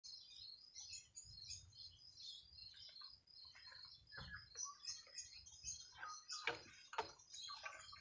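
Faint chirping of small birds, many short high notes throughout. A few knocks and rustles in the second half as a wooden birdcage is carried and set down on the table.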